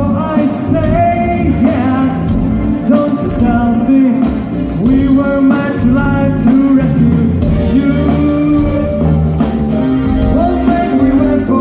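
Rock song with a sung melody over guitar, bass and drums, at a steady beat.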